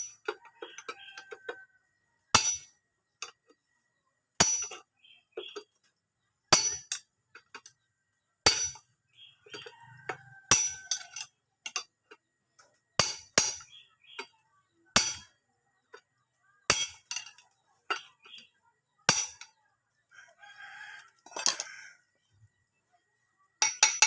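Hammer striking metal motorcycle engine parts, sharp ringing clanks roughly every two seconds, one quick double strike, as parts are driven out during a crankcase teardown.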